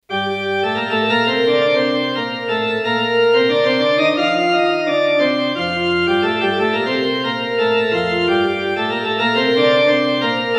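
Electric organ playing slow held chords as a song intro, the chord changing every two to three seconds.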